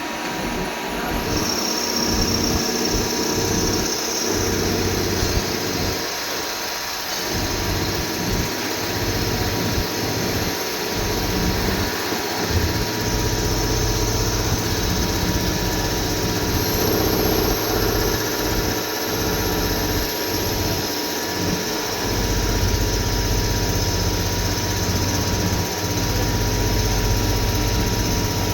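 CNC machinery running steadily: a continuous high whine over a motor hum that grows stronger and weaker in stretches.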